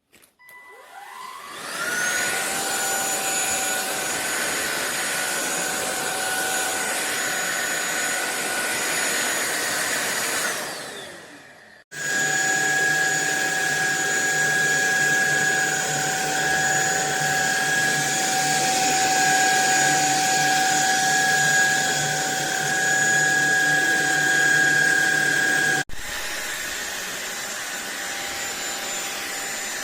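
Cordless stick vacuum's motor starting with a rising whine, running steadily with a high whine, then spinning down about ten seconds in. It is heard again running at a steady pitch, with a sharp change in tone and level near the end.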